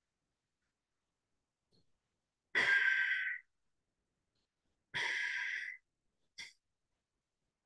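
A man breathing through one nostril in alternate-nostril pranayama, close to a headset microphone: two long breaths of about a second each, a couple of seconds apart, then a short sniff near the end.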